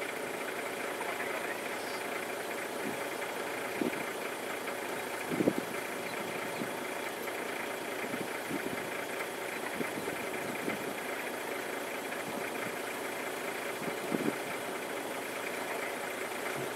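A safari vehicle's engine idling steadily, with a few soft knocks.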